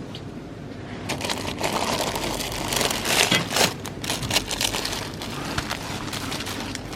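Rustling and crinkling, like packaging being handled, with many small clicks and knocks, busiest between about one and four and a half seconds in.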